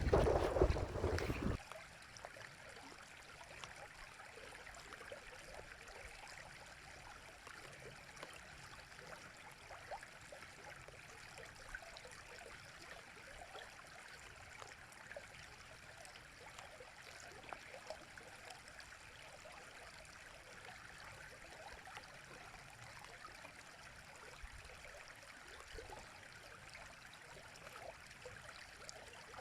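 A stream flowing steadily over stones, an even babbling with small splashes. It opens with a louder low rumble that cuts off suddenly about a second and a half in.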